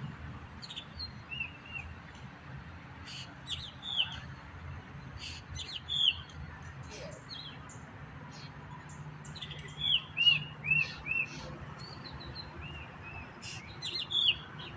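Birds chirping: many short, arched chirps and sharp chips scattered throughout, with a quick run of repeated chirps about ten seconds in, over a faint low steady hum.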